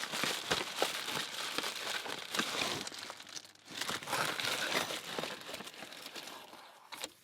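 Packaging crinkling and rustling as it is unwrapped by hand to free a lock, with a short lull about three and a half seconds in.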